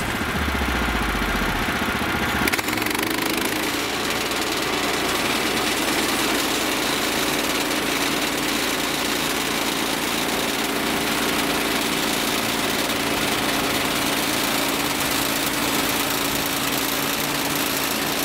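Gasoline engine of a Woodland Mills HM130MAX portable bandsaw mill running steadily at speed, with the band blade spinning. The saw head is at the end of the log, not yet in the cut.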